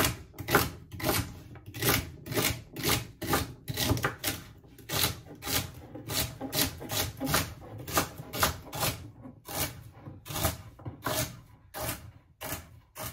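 Knife chopping celery on a wooden cutting board, steady crunchy cuts about two a second.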